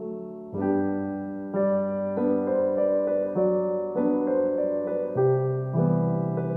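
Background music: an electric piano playing chords that change about every half second to a second.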